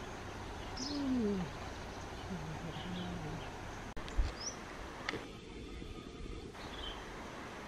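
Birds calling outdoors: a low, falling cooing call about a second in and a shorter low coo near three seconds, with a few brief high chirps scattered through. A dull thump comes just after four seconds.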